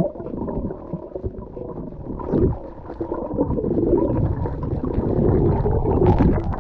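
Muffled underwater rumble and water rush from a head-mounted GoPro in its waterproof housing as a free-diver swims with a speared fish. Wavering, voice-like moaning tones run through the middle of it.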